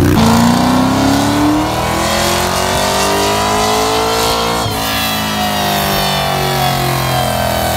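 A Mazda RX-7's engine revving up under load on a trailer-mounted chassis dyno, its pitch climbing steadily for about four and a half seconds. The climb then breaks, and the engine runs on high, rising a little before easing back near the end.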